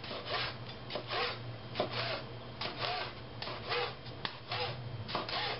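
Chef's knife slicing a poblano pepper into strips on a plastic cutting board: a quick run of short cutting strokes, about two a second, each a brief scrape as the blade goes through the flesh and meets the board.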